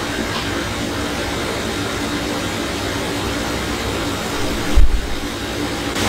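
Steady background hum and hiss, with one short low thump about five seconds in.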